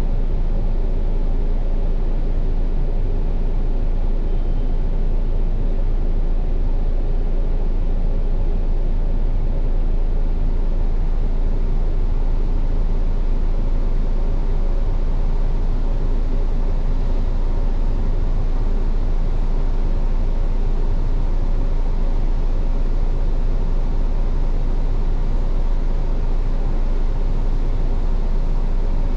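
Steady low hum of a bus standing still with its engine idling, heard from inside the cabin, with faint steady tones over it and no change throughout.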